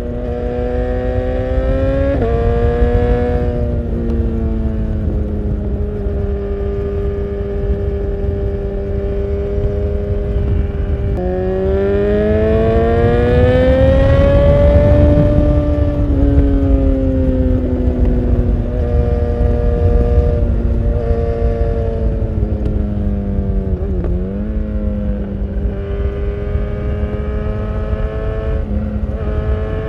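BMW S1000R's inline-four engine running through an Akrapovič full exhaust while riding: a mostly steady note that climbs and falls again over a few seconds around the middle as the throttle is opened and closed, with a short dip and recovery in the later part. A low wind rumble on the microphone runs under it.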